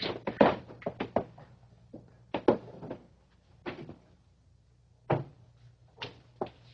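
Irregular knocks and thuds of footsteps and bumping on a studio set, a quick run of them at first, then single knocks every half second to a second, over a faint steady low hum.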